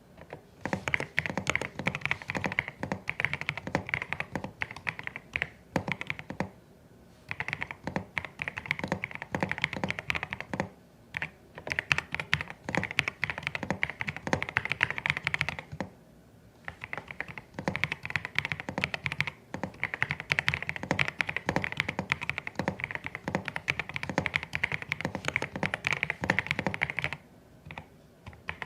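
Fast typing on a CIDOO ABM081 Stellar mechanical keyboard with Carda switches: dense runs of key clicks broken by short pauses, about a third of the way in, near the middle and again a little later, ending with a few lone keystrokes.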